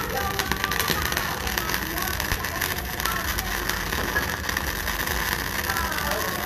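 MIG welder arc burning continuously while a shaft joint is welded: a steady crackling sizzle as the wire feeds into the weld pool, with sparks spattering.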